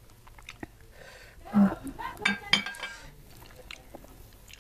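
A small glass bowl set down on a ceramic plate: a few sharp, ringing glass-on-ceramic clinks and knocks about one and a half to three seconds in.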